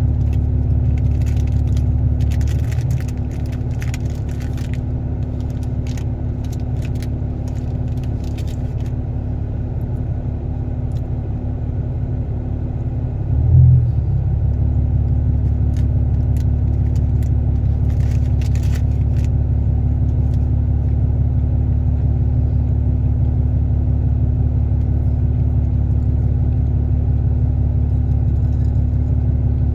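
Steady low rumbling hum with faint crisp clicks and crackles in clusters, and one short low thump about halfway through.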